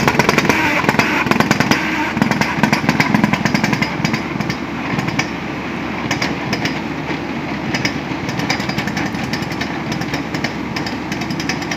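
Hydraulic road-guardrail pile driver hammering a barrier post into the verge: a fast, steady run of impacts over the machine's running engine, a little louder in the first few seconds.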